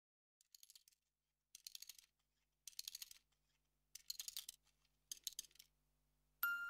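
Five short bursts of rapid, crisp clicking, about one a second, each lasting about half a second. Near the end, music with chiming, bell-like notes begins.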